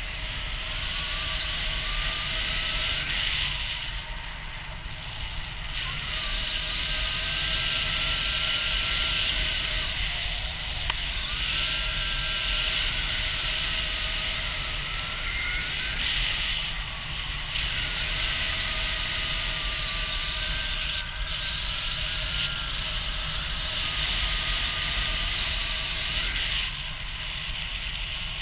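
Airflow rushing over a camera mounted on a paraglider in flight, a steady noise with a faint whistle that wavers up and down in pitch.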